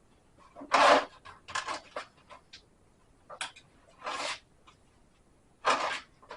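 Intermittent handling noises: a few short scraping, rubbing sounds with faint ticks between them, the loudest about a second in and near the end.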